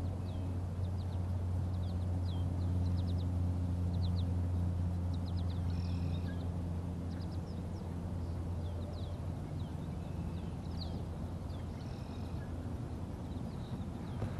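A steady low motor hum, the loudest sound, with small birds chirping in short repeated calls over it.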